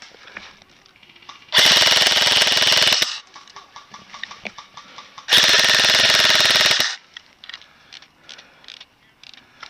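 Airsoft electric gun firing two long full-auto bursts close to the microphone, each about a second and a half, with a short pause between them.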